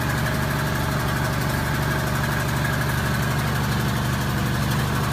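Steady engine running at an unchanging pace, a low even hum with hiss.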